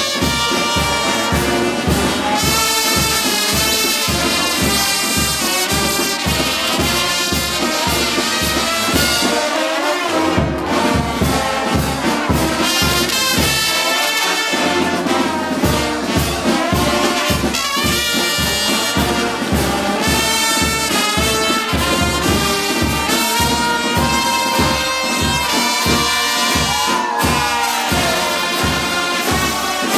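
Brass band playing an upbeat carnival march over a steady beat; the low beat drops out briefly twice, about a third of the way and about halfway through.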